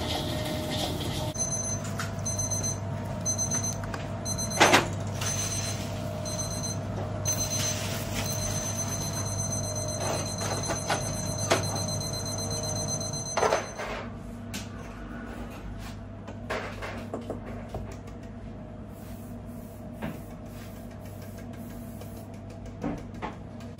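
Electronic alarm beeping: a run of short high beeps, a little more than one a second, that turns into one steady held tone cutting off about 13 seconds in. A steady machinery hum lies underneath, and a sharp knock comes about five seconds in, with a few lighter clicks and clatters later.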